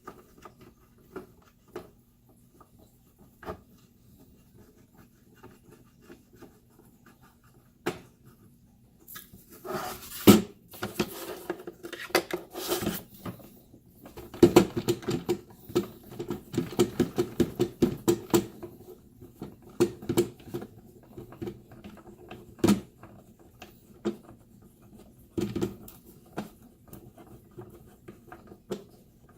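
Small hand-work sounds on a wooden T-TRAK model railroad module as its leveling feet are fitted: scattered clicks and knocks, a louder spell of scraping and knocking midway, then a run of quick, even ticks, about four or five a second, as a foot is turned in with an Allen wrench.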